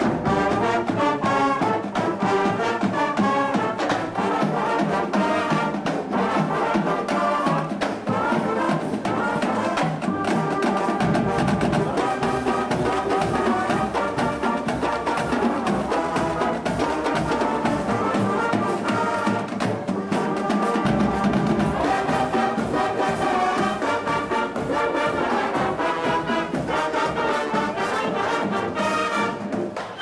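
Marching band playing live, a brass-heavy sound of trombones and sousaphones.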